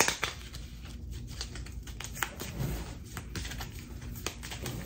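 A deck of cards being shuffled by hand: a quick, irregular run of small paper clicks and snaps.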